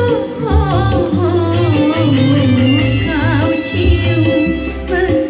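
Dangdut song: a woman singing into a handheld microphone with wavering, ornamented notes over a backing track with a steady, repeating bass beat.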